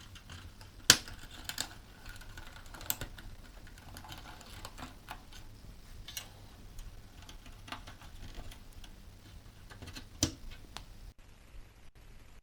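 Power cable connectors being handled and pushed into their sockets on a desktop PC motherboard: scattered small plastic clicks and light knocks, with a sharper click about a second in and another near the end.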